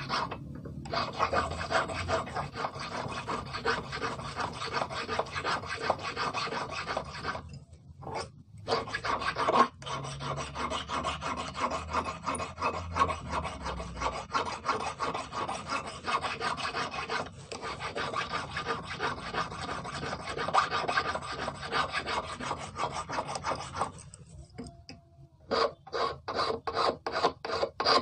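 Hand file rasping back and forth on the end of a 3 mm brass rod, in quick, steady strokes. It breaks off briefly about a third of the way in and again near the end, then resumes in slower, separate strokes.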